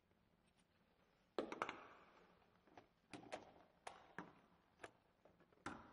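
Sharp metallic knocks and clicks as a DoubleLock Loopchain chain lock is handled and its rod fitted through a metal D-ring on a boat's hull: about ten separate knocks, the loudest about a second and a half in.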